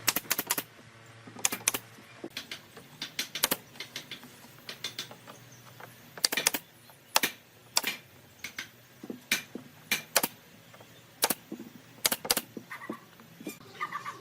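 Irregular light knocks and clicks of hand work on wood, coming singly and in quick pairs.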